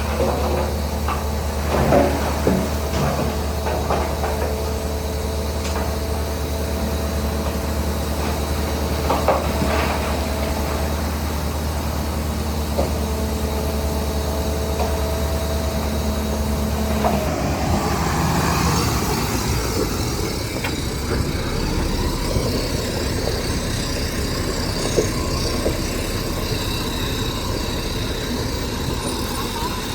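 Heavy diesel engine of a Shantui DH17C3 crawler bulldozer running with a steady low drone, with several sharp metal clanks. About seventeen seconds in, the engine note rises and turns rougher as it takes on load.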